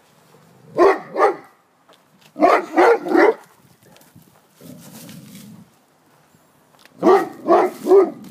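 A large mastiff-type dog barking in three quick bursts: two barks, then three, then after a pause three more. The barking is agitated, aimed across the fence at a neighbour.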